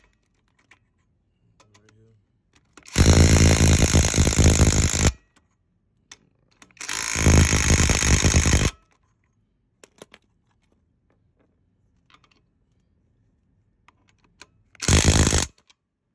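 Cordless brushless impact wrench hammering lug nuts tight on a wheel: two loud bursts of about two seconds each, then a short half-second burst near the end, with faint ticks in between.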